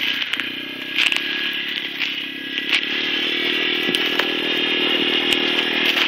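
Small youth ATV's engine running steadily as the quad crosses a dirt field, growing louder about halfway through as it comes closer.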